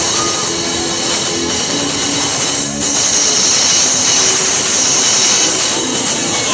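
Loud music with held notes under a dense, hissy wash of noise, a little louder from about three seconds in.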